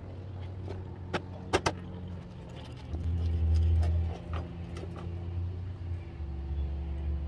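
Kitchen knife knocking and scraping on a plastic cutting board as a raw fish is cut and cleaned, with a few sharp knocks about a second and a half in. A steady low motor hum runs underneath and swells briefly in the middle.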